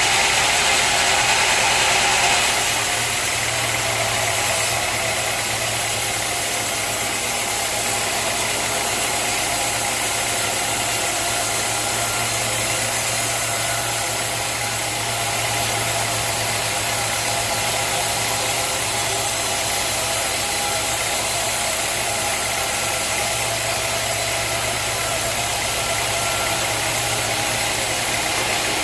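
Sawmill machinery running steadily: a motor hum under constant mechanical noise, louder and brighter for the first two seconds or so, then even.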